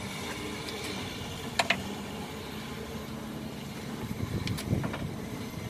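Steady low engine hum aboard the boat, with a few sharp clicks about a second and a half in and again near the end.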